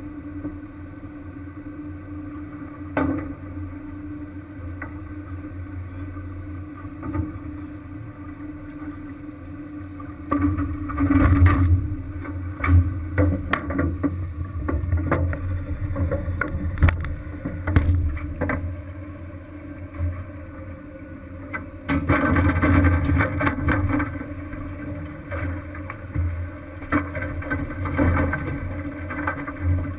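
A fishing boat's engine running with a steady low hum. From about ten seconds in, irregular knocks and clattering come and go over it, loudest a little after the middle.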